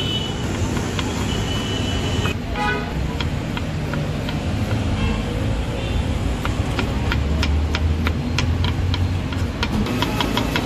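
Knife chopping tomatoes and then an onion on a wooden cutting board, a run of quick sharp taps that grows denser in the second half. Under it runs a steady rumble of street traffic, with short horn toots near the start.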